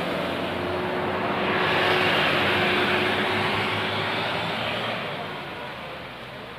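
A motor vehicle passing on the road: its engine and tyre noise swells to a peak about two seconds in, then fades away.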